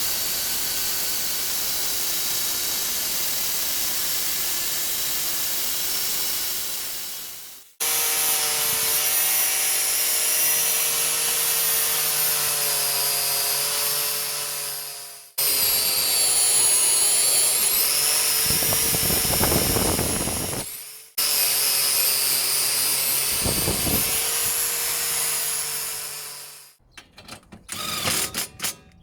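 A power tool runs in four long spells of several seconds each. Each spell starts abruptly and winds down as it stops, its pitch shifting a little. Short irregular clattering follows near the end.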